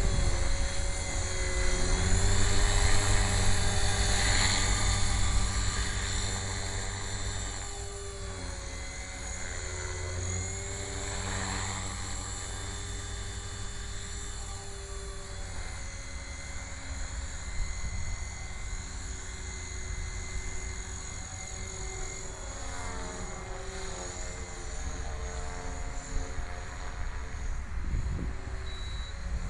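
Electric 450-size RC helicopter (HK450GT) running, a whine from its brushless motor and rotors whose pitch rises and falls as the head speed and collective change. Louder for the first several seconds, then fainter for the rest.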